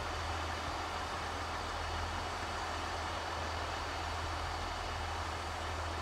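Diesel engine of a Shinkansen track-maintenance vehicle running steadily, a constant low hum over an even hiss.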